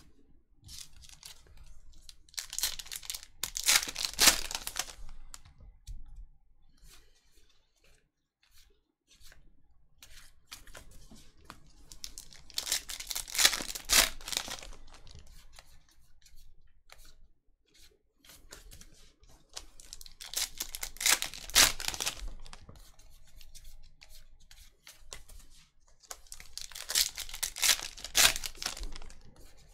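Foil trading-card pack wrappers being torn open by hand, four tears of about two seconds each. Fainter crinkling and handling of the packs and cards comes between the tears.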